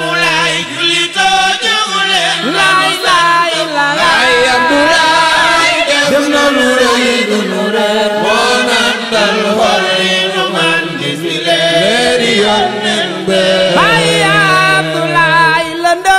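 Sung Wolof Islamic devotional chant: a singing voice draws out long, ornamented melodic lines over a steady low held drone, which drops out near the end.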